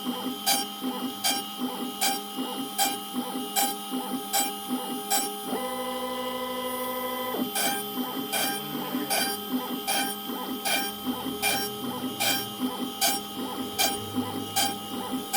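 Stepper-driven DIY CNC router running, with a steady mechanical hum and regular ticking. About halfway through, the ticking gives way for roughly two seconds to a steady whine from the stepper motors during one continuous move.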